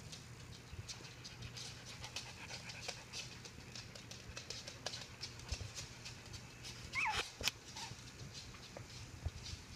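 Small white puppies scuffling and play-wrestling in a fabric dog bed: a steady patter of small scratches and rustles, with one short falling squeak from a puppy about seven seconds in and a fainter one just after.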